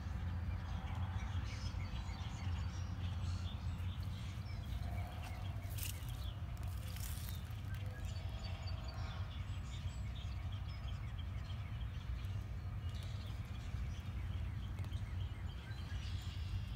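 Steady low machine hum, with faint bird chirps scattered over it and a couple of brief scuffs about six and seven seconds in.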